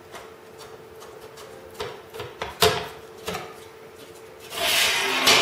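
Aluminium aircraft nose rib being worked by hand on a bench with a small flange-bending tool: a few sharp metallic clicks and taps, then a longer scraping rub near the end.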